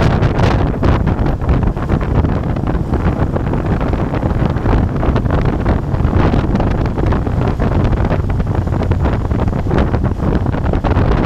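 Wind buffeting the microphone on a moving Moto Guzzi Bellagio, with its V-twin engine running steadily underneath at a constant cruising pace.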